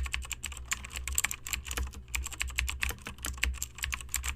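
Computer keyboard typing: rapid, uneven key clicks over a low hum.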